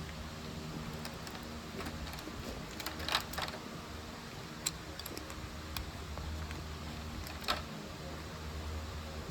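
A few sharp plastic clicks and taps, the loudest about three seconds in and again near the end, as clear polycarbonate keycaps are handled and pressed onto a mechanical keyboard's switches, over a steady low hum.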